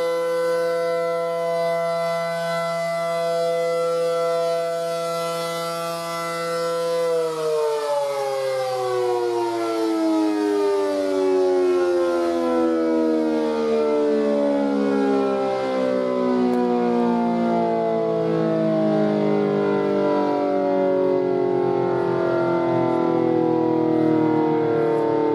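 ACA Allertor 125 rotating tornado siren sounding its steady Alert tone. About seven seconds in, the tone gives way to a long, slow fall in pitch as the siren winds down at the end of the signal.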